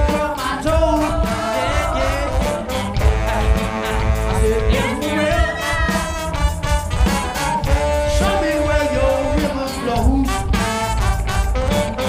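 Live band playing an instrumental stretch: a horn section of saxophones and trombone holding notes over electric guitar and a steady drum beat.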